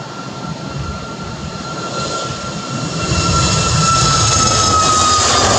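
Boeing 737 MAX 8's CFM LEAP-1B turbofan engines at takeoff thrust as the airliner rolls down the runway, growing louder about three seconds in. A steady engine whine runs through the noise and drops slightly in pitch as the jet passes.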